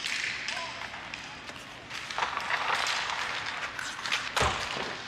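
Ice hockey play on a rink: skate blades scraping and carving the ice, with sticks and puck clacking. A heavy thump comes near the end.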